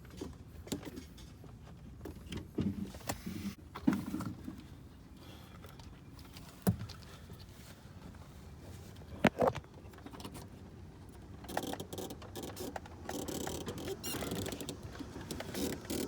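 Scattered clicks and knocks of parts and tools being handled on a car, several sharp ones in the first ten seconds, then denser scraping and rustling clatter building toward the end.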